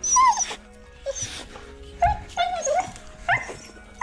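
Dog whining and yelping in a run of short, high calls, the loudest right at the start, a sign of its excitement. Background music plays underneath.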